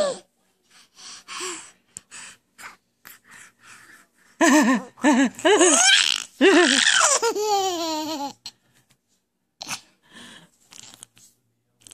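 Baby laughing hard: a few seconds of short quiet gasping breaths, then from about four seconds in a loud run of high-pitched laughs that ends in one long falling laugh, followed by breathy gasps again.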